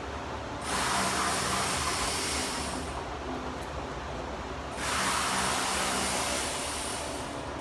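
Two long bursts of a pressurized spray hissing, each about two and a half seconds and starting and stopping sharply, as spilled oil is washed off the underside of the car after an oil filter change.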